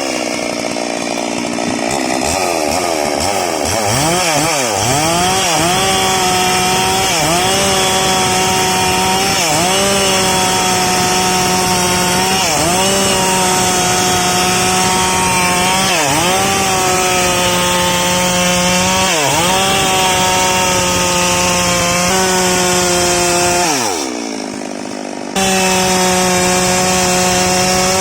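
STIHL MS 382 two-stroke chainsaw running at full throttle while ripping salam wood lengthwise. Its pitch dips and recovers every three seconds or so as the chain bogs in the cut. Near the end the revs fall away sharply and it goes quieter for about a second before coming back at full pitch.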